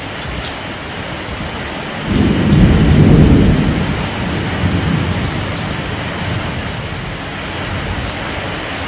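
Heavy rain in a storm, a steady hiss, with a loud low rumble that comes in suddenly about two seconds in and fades over the next few seconds.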